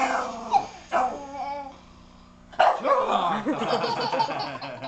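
A young child making playful fake snoring noises: a few short, throaty snorts, a brief pause, then a longer rough run of them starting about two and a half seconds in.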